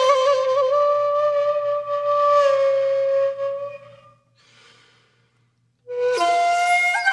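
Background music: a single-line melody of long held notes, wavering in a trill at first, fading out about four seconds in, then a new phrase starting after a short pause.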